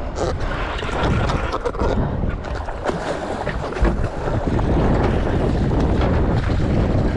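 Wind buffeting the microphone over water rushing and slapping against the boat's hull, a steady rush that grows a little louder about halfway through.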